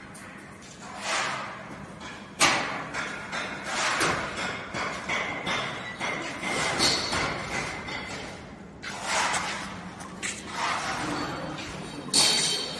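Thumps and knocks on sheet metal inside a metal drying oven: a sharp bang about two seconds in, then irregular clatter, and another loud bang near the end.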